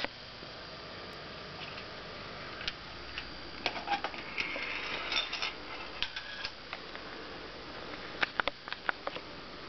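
Clockwork mechanism of an antique German tinplate wind-up billiard-player toy clicking and ticking irregularly, with a short whirr around the middle and a quick cluster of sharp clicks near the end.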